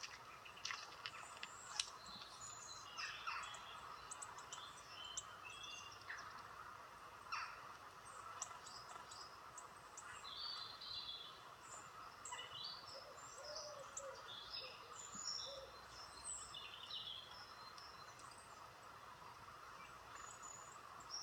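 Small birds chirping and calling, played from a woodland nature video through a tablet's speaker: faint, scattered short high chirps and trills over a steady hiss.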